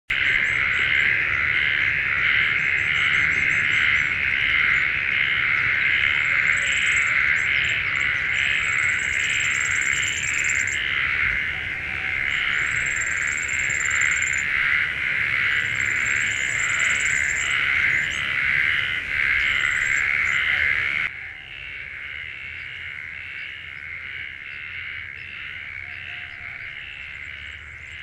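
Steady wetland chorus of calling insects, throbbing in pulses a bit under twice a second, with high trilling bird calls over it for the first two-thirds. About 21 s in the whole sound drops suddenly to a quieter level and the high trills stop.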